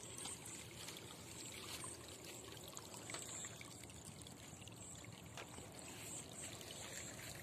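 Faint, steady trickle of water running through a cut in an earthen paddy-field bund into a muddy ditch.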